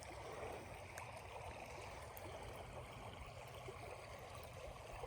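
Creek water running, a faint steady rush.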